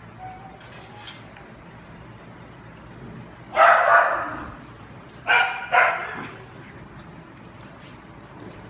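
Dog barking: one longer bark about three and a half seconds in, then two short barks close together about two seconds later.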